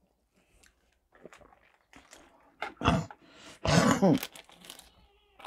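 A person eating close to a lapel microphone: faint mouth clicks and chewing, then two loud throat sounds about three seconds in, a short one followed by a longer one with a rasping voice in it.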